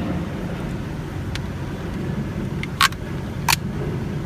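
Two sharp clicks, about three seconds in and half a second apart, from the Nissan Altima's gear shifter assembly as its freshly bent park switch is worked, over a steady low rumble.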